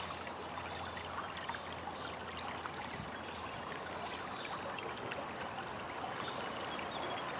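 A shallow river flowing steadily over a stony bed, with continuous rippling water.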